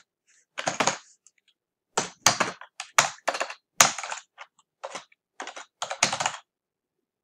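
Typing on a computer keyboard: quick runs of keystrokes in several short bursts with pauses between, stopping shortly before the end.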